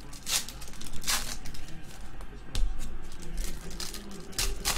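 Foil trading-card pack being torn open and crinkled by hand: a few short crackling rips, two close together near the end.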